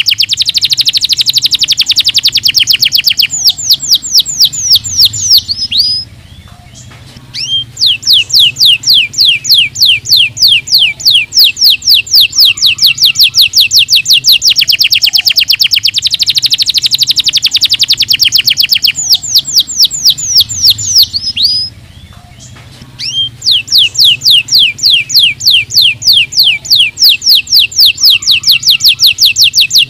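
Domestic canary singing long, rapid trills of quickly repeated sweeping notes, broken by two brief pauses, one about six seconds in and one about twenty-two seconds in.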